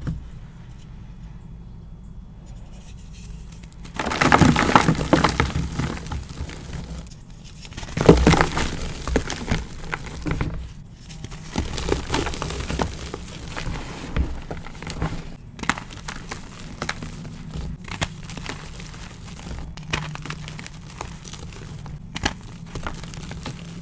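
Blocks of gym chalk topped with charcoal powder and glitter crushed and crumbled by hand. Quiet for the first few seconds, then loud dry crunching from about four seconds in, a second loud burst around eight seconds, and steady crumbling and crackling after that.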